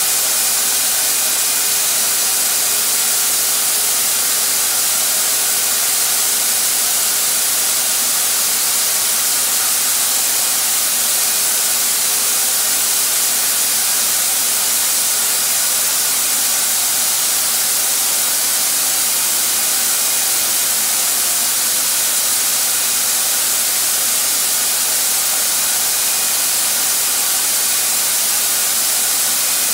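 Harbor Freight HVLP turbine sprayer running: its turbine blower pushes air through the hose and spray gun as a loud, even hiss, with a faint steady whine under it.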